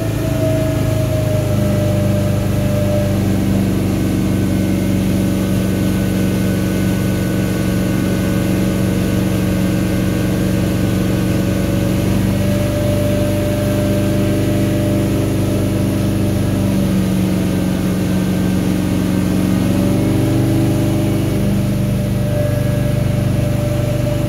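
Outboard motor of a river boat running hard at speed, a steady engine note over the rush of spray and churning water. The engine note shifts a little about two-thirds of the way through, as if the throttle is eased and opened again.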